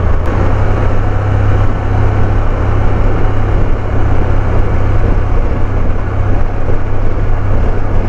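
Motorcycle riding along at road speed, heard from the rider: a steady rush of wind on the microphone over a constant low engine hum.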